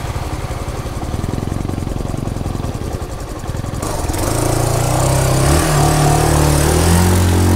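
Suzuki trail motorcycle engine running at low speed with rapid firing pulses. About four seconds in, the bike ploughs into a deep puddle: water sprays and hisses, and the engine note rises and holds as the bike pushes through the water.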